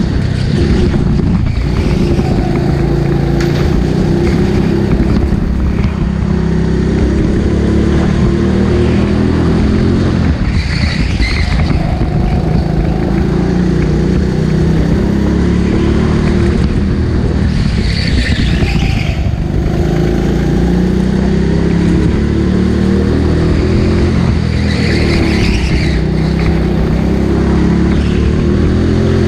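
Go-kart engine running hard. Its pitch climbs steadily, then drops, over and over, as the kart accelerates and lifts off for corners, with three short high squeals along the way.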